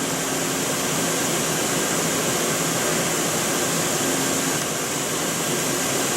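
Steady mechanical hum with an even airy rush, unchanging throughout.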